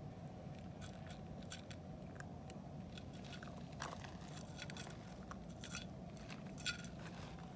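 A cat and a raccoon dog chewing food, heard as irregular crisp crunches over a steady low background rumble.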